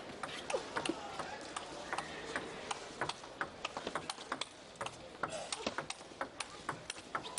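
Table tennis ball clicking off the rackets and the table in a fast rally: a quick, irregular run of sharp ticks over a faint arena hiss.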